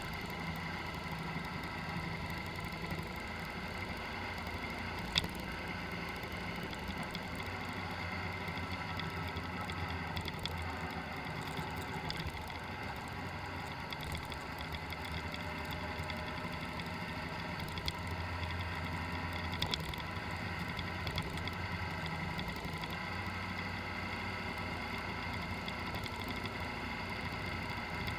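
Car engine running at a steady, gentle speed while driving, a constant hum with a faint steady whine above it and a few brief clicks.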